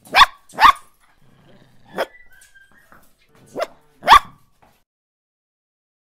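Dachshund puppy barking: five short, high-pitched barks. A quick pair comes first, a single bark about two seconds in, then another quick pair a second and a half later.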